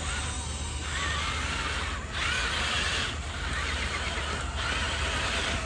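Electric motor and gear train of an RC crawler truck whining in short throttle pulses of about a second each, the pitch wavering as it works over rough ground.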